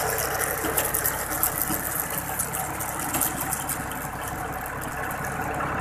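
Tractor engine running steadily, with a fast, dense ticking rattle over it.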